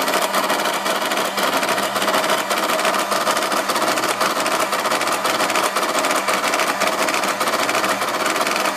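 Swintec SW-20 electronic cash register's printer clattering rapidly and steadily as it prints a Z report, feeding the paper tape line by line.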